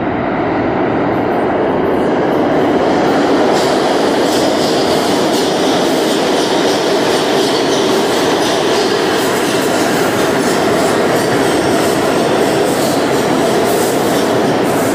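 New York City subway A express train running through the station on the express track without stopping: a loud, steady rumble. From a few seconds in, its wheels clack rapidly over the rail joints.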